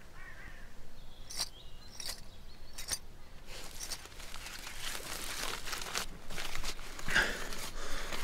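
A few light clicks, then a folded sheet of paper being opened out and crinkled in the hands.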